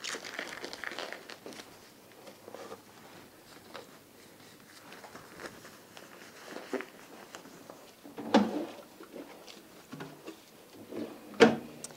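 Faint rustling and small snaps of disposable plastic gloves being pulled onto the hands. Later come two louder short knocks, about 8 seconds in and near the end, as a bedside cabinet drawer is opened and a plastic bedpan is lifted out.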